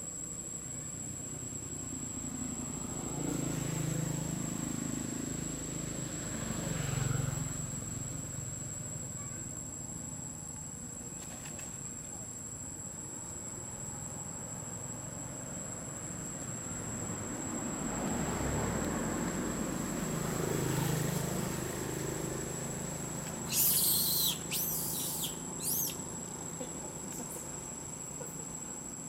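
Steady, high-pitched insect drone of crickets or cicadas in forest undergrowth. Near the end, a few short, loud, high wavering calls stand out over it.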